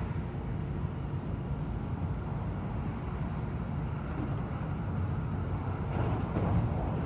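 Inside a moving train carriage: a steady low running rumble of the wheels on the track and the car body, swelling slightly near the end.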